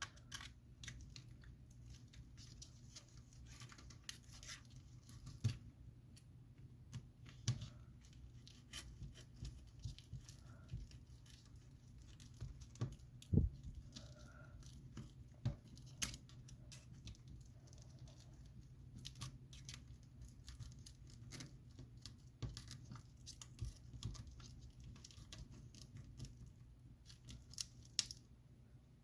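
Scattered small clicks, taps and scraping of a tool prying an iPhone 7 battery loose from its strong adhesive tape, over a steady low hum.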